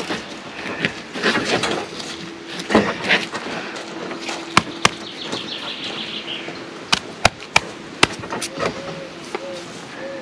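Bricklaying work on a concrete block: mortar scraping and handling noise, then about six sharp taps of a steel trowel on the block between about four and eight seconds in as it is knocked down to the line. A steady low hum runs underneath.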